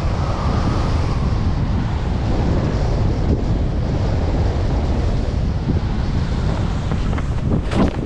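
Wind buffeting the microphone of a pole-mounted camera carried by a skier going fast downhill, mixed with the hiss of skis on snow. Near the end a sudden spray of snow hits the camera in a short run of sharp gusts.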